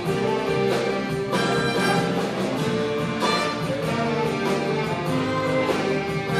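Orchestra of violins, saxophones and trumpets playing, with held notes and chords throughout.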